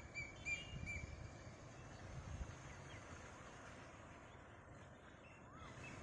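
Small birds calling in the open: a quick run of short chirps in the first second, then a few faint rising-and-falling whistles, over a low fluttering rumble of wind on the microphone.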